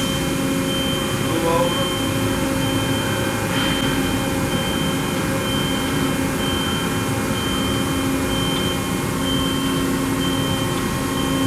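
Steady hum of running industrial machinery, a dense low drone with a few constant whining tones, unchanging throughout.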